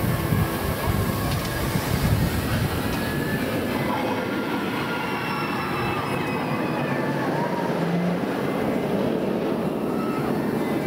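Incredible Hulk Coaster train running along its steel track overhead: a steady rumble and roar of wheels on the rails, heaviest in the first couple of seconds.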